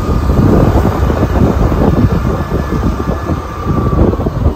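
Loud wind buffeting on the microphone from riding on a moving motor scooter, an uneven low rumble, with a faint steady whine underneath.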